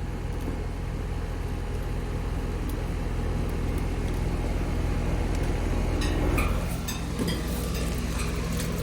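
Heat pump outdoor unit running with a steady low hum, with a few light clicks and knocks about six to seven seconds in.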